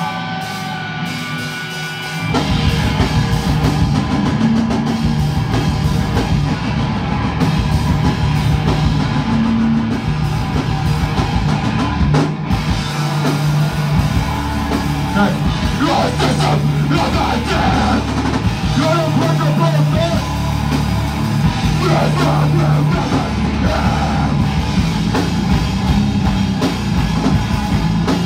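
Live doom-hardcore band playing loud. Guitar tones ring on their own for about two seconds, then the full band crashes in with heavy distorted guitars, bass and pounding drums, with shouted vocals in places.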